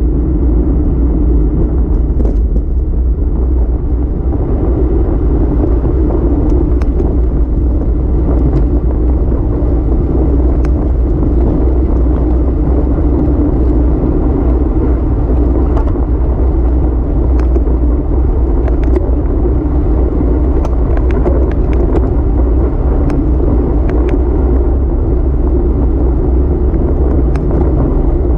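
Wind buffeting the microphone of a handlebar-mounted camera on a road bike riding at speed, a loud, steady low rumble. Faint scattered ticks sound over it.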